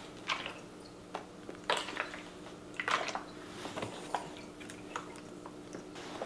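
Scattered light clicks and taps of a plastic water gun being handled and turned over, over a faint steady hum.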